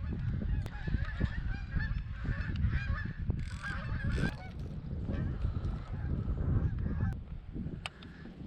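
Geese honking repeatedly, with wind rumbling on the microphone and a few sharp clicks.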